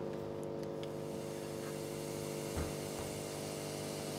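Spa treatment machine running with a steady electric hum of several steady tones, a hiss joining about a second in. A short low thump about halfway through.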